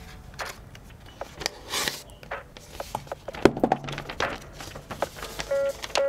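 Packaging being handled: scattered light knocks and rustling as a cover and a paper sheet are lifted out of a cardboard keyboard box, with one sharper knock about halfway through. Background music begins near the end.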